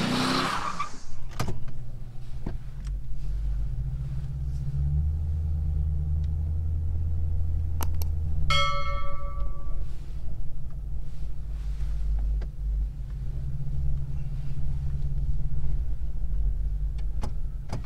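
2004 Mercury Grand Marquis's 4.6-litre V8 running, heard from inside the cabin as a steady low hum that swells for a few seconds in the middle. A single chime rings about eight seconds in and fades, with a few light clicks around it.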